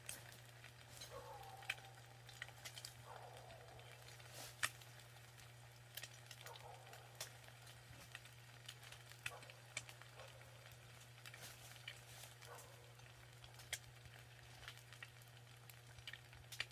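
Faint crackling and sizzling of eggs frying in a pan over a wood fire, with scattered small clicks and pops. A few faint, short falling animal calls.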